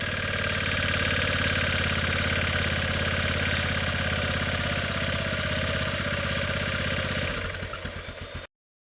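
Single-cylinder four-stroke engine of a 1998 Yamaha Grizzly 600 ATV running steadily at idle. Near the end the steady running stops and the sound turns irregular for about a second before cutting off suddenly.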